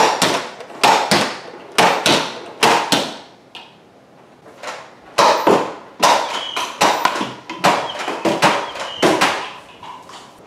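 Nerf Mega Thunderbow blaster being primed and fired over and over: a string of sharp plastic clacks and pops as the string is drawn back, the internal catch lets go and the plunger rod shoots the dart. There are about four shots, a short pause, then a fast run of about a dozen.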